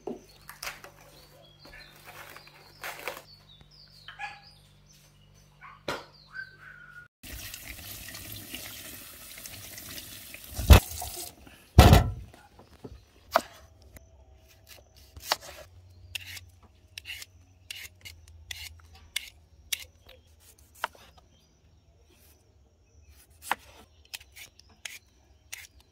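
Cling film crinkling as it is stretched over a plastic bowl. Then a tap runs into a stainless-steel sink for about four seconds, followed by two loud knocks. After that, a swivel peeler scrapes the skin off sweet potatoes in many short strokes.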